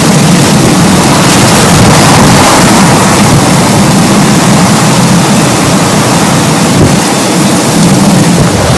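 Hurricane wind and heavy rain, loud and steady, with the wind buffeting the microphone into a deep rumble.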